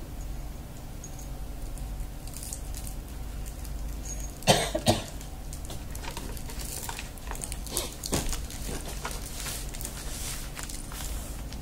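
A person coughing: two quick coughs close together, about halfway through.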